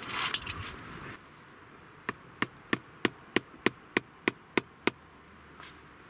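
A rubber mallet knocking the spine of a knife blade set across a stick on a wooden block, batoning it into the wood: about ten evenly spaced knocks, roughly three a second, after a short burst of noise at the start.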